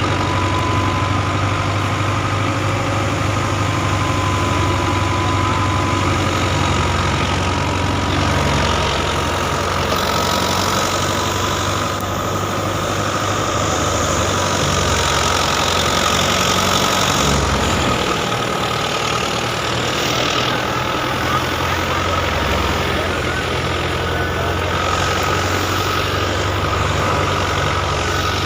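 Farm machinery engine running steadily during the wheat harvest, with a steady high whine above the low hum; the engine note shifts a couple of times.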